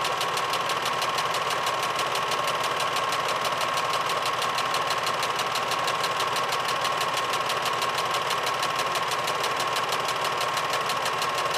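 8mm film projector running: a fast, even mechanical clatter from the film transport, with a steady motor whine.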